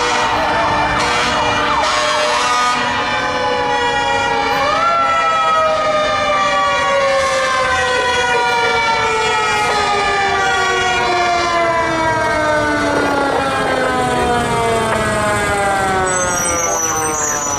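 Fire engine siren wailing. Its pitch sweeps up quickly about four seconds in, then falls slowly and steadily for the rest of the time.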